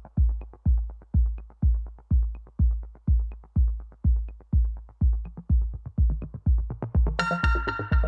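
Electronic dance music with a steady, deep kick drum beating about twice a second. A bright synth chord comes in about seven seconds in.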